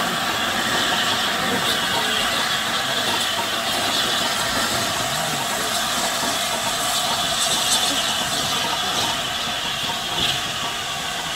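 LNER A4 Pacific steam locomotive giving off a steady hiss of steam as it draws slowly past, with no distinct exhaust beats.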